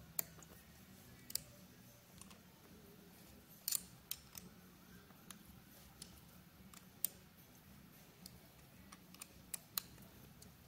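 Scattered sharp metallic clicks and clinks, about a dozen at irregular intervals, of a steel hex key turning screws on a Monarch 10EE lathe apron, over a faint low hum.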